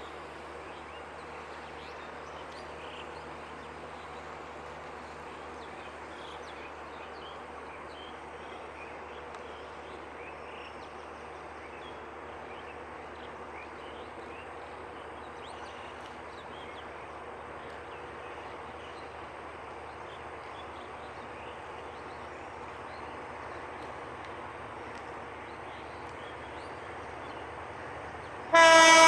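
EMD GT18LA-2 diesel locomotive's low steady rumble as it approaches, with faint chirping over it. Near the end its air horn starts sounding, much louder, a chord of several notes.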